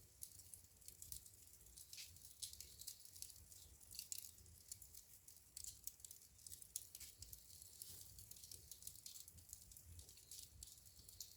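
Burning wood crackling in a fireplace: quiet, irregular small pops and snaps in close succession, over a faint low rumble.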